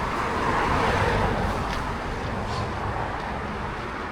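A road vehicle passing, its tyre and engine noise swelling during the first second or so and then slowly fading away.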